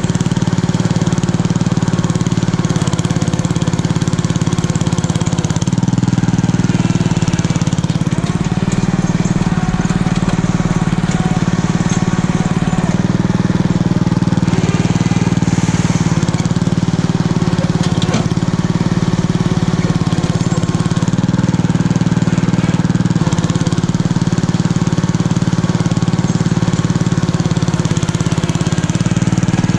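Homemade garden tractor's 6.5 hp single-cylinder engine running steadily under load as the tractor pushes wet snow with its front blade.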